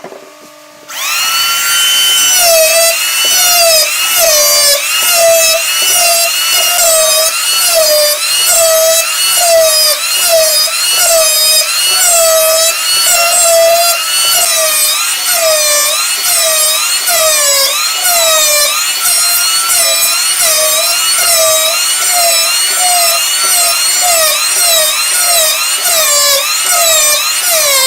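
Wood lathe turning: a loud whine from the cutting tool on the spinning wood. It starts about a second in and its pitch rises and falls evenly, about one and a half times a second.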